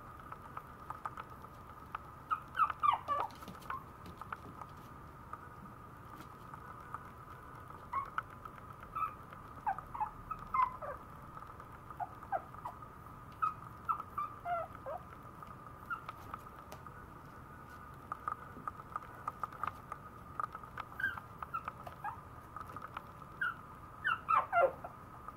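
Maltese puppy making high squeaky whimpers, short ones that slide down in pitch, most of them about three seconds in and near the end, with light clicking of its claws on the floor. A faint steady high tone runs underneath.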